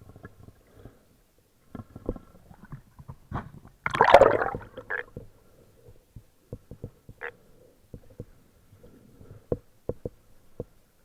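Muffled underwater gurgling, loudest in a burst of about a second some four seconds in, among scattered short clicks and knocks.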